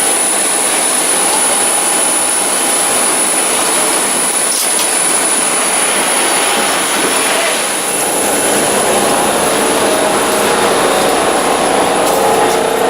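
Boeing 737 jet engines running: a steady loud rush with a constant high-pitched whine over it.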